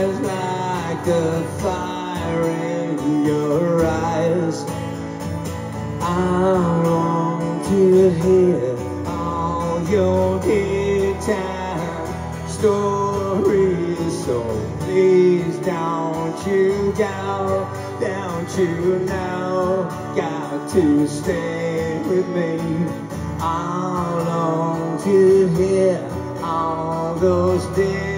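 Live acoustic song: a steadily strummed acoustic guitar with a wavering melody line carried over it.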